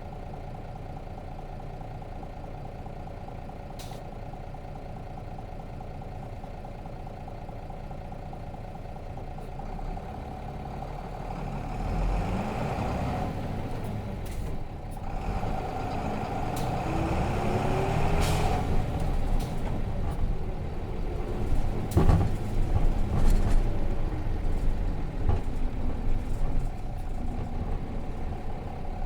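Nissan Diesel FE6 inline-six diesel of a 2002 RM252 bus idling steadily, then pulling away from about ten seconds in, the engine note rising as it picks up speed. A few short sharp noises come during the acceleration, one loud one about 22 seconds in.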